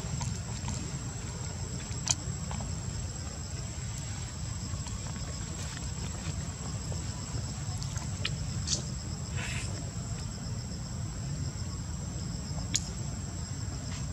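Steady high-pitched insect shrilling, like crickets or cicadas, over a low steady rumble, with three short sharp clicks.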